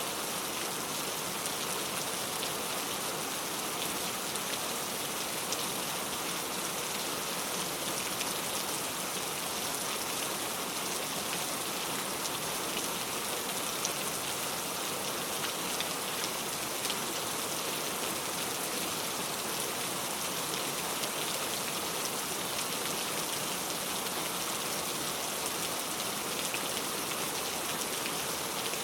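Steady heavy rain, with the fine ticks of individual drops striking close by.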